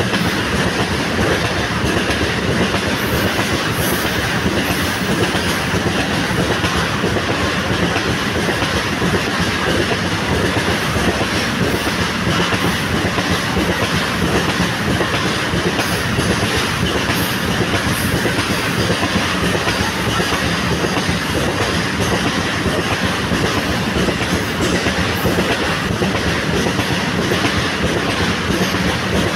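Loaded coal wagons of a long Indian Railways freight train rolling past, their wheels running steadily over the rails.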